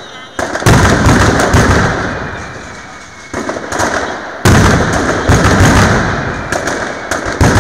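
Mascletà: a dense, rapid barrage of masclet firecrackers exploding, with heavy booms about half a second in, again just after three seconds and at four and a half seconds, each trailing off into crackling.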